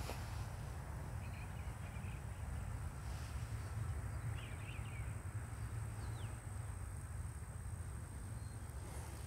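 Quiet outdoor ambience: a steady high insect trill under a low rumble, with a few faint bird chirps, about a second in, around four and a half seconds in, and a short falling whistle near six seconds.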